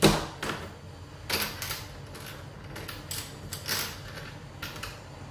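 Newly fitted Kwikset doorknob lock being turned and released, its spring latch clicking and rattling as it draws in and snaps back out, a string of sharp metallic clicks with the loudest at the start.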